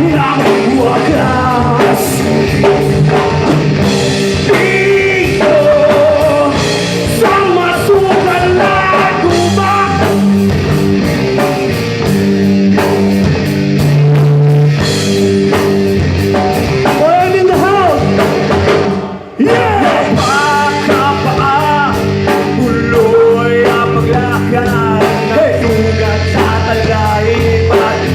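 Rock band playing live, with singing over electric guitar, bass guitar and drum kit. The band cuts out for a moment about two-thirds of the way through, then comes straight back in.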